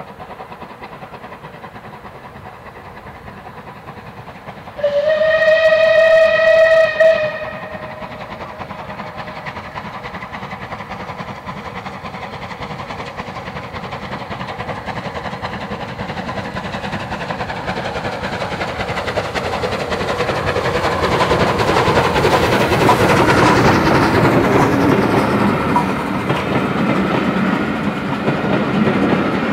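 SR Rebuilt Battle of Britain steam locomotive 34053 sounds its whistle, one steady note for about two and a half seconds. Then the sound of the locomotive working hard grows steadily louder as it approaches and passes, and its coaches roll by with a clickety-clack.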